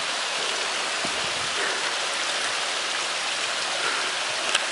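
Creek water running steadily, an even rushing hiss, with a couple of faint clicks.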